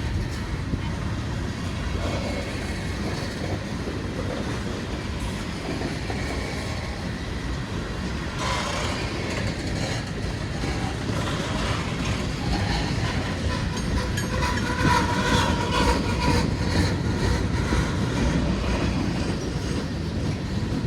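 Freight cars of a long CSX freight train rolling past with a steady rumble and rattle of wheels on rail. From about eight seconds in, higher-pitched metallic wheel noise comes in and the passing grows somewhat louder.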